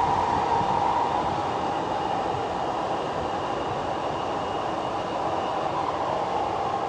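Train running out of sight, a steady rushing rumble with a whine that sinks slightly in pitch as it slowly fades.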